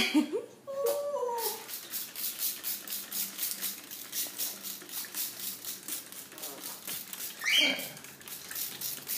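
Hand-pumped spray bottle squirting over and over, about two to three short hissing sprays a second. An eclectus parrot gives short whimpering, gliding calls near the start and one rising call near the end.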